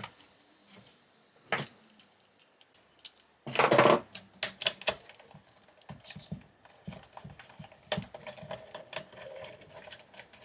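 Small metal parts and hardware being handled and pulled out of a high voltage junction box during teardown: scattered clicks and clinks, with one louder clatter about three and a half seconds in.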